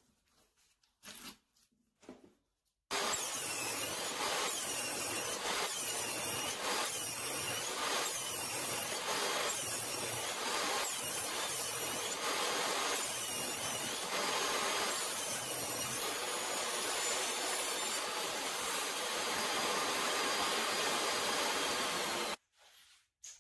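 DeWalt jobsite table saw cutting through a taped-together stack of cedar blanks, pass after pass, the cutting sound rising and falling about every second. It starts suddenly about three seconds in and cuts off suddenly near the end, after a few seconds of light handling noise.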